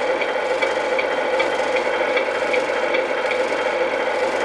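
Simulated truck diesel engine idling steadily from the Tamiya MFC-01 multi-function unit's speaker in a 1/14 RC tractor truck, with a light regular tick about two and a half times a second over it.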